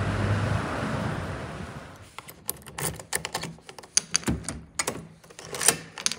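Wind noise on the microphone at first. Then, from about two seconds in, a quick run of sharp clicks and metallic rattles: a key going into a door's deadbolt lock and turning, with the key ring and its metal key tag jingling against the door hardware.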